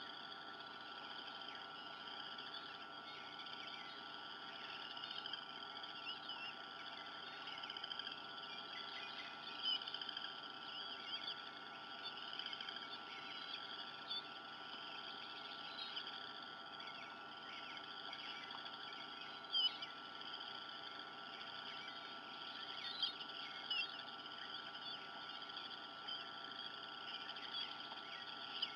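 Outdoor chorus of many small high chirps from wild birds, going on steadily, with a few louder single chirps about 10, 20 and 23 seconds in, over a faint steady hum.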